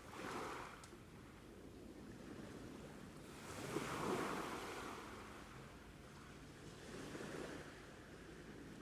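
Sea waves breaking and washing in, the surf noise swelling three times, loudest about four seconds in.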